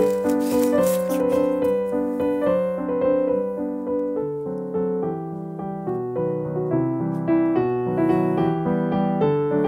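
Background piano music, a continuous run of notes at a steady level.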